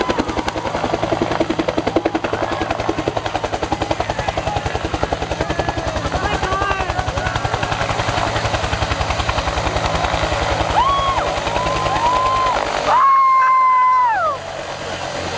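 Bell UH-1 "Huey" helicopter running close by, its two-blade main rotor beating in a rapid, steady rhythm, with people's cheers and shouts over it. About thirteen seconds in, a loud held shout that falls away at its end briefly covers the rotor.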